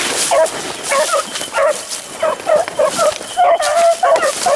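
A pack of beagles baying on a rabbit's trail: several hounds at once, with short overlapping cries following one another and one longer drawn-out cry about three and a half seconds in.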